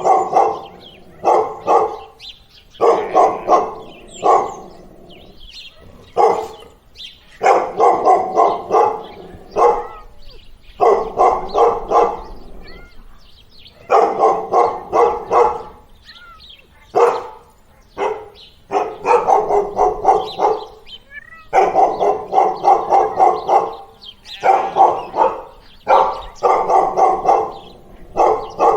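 Dog barking over and over, in quick runs of several barks with short pauses between them.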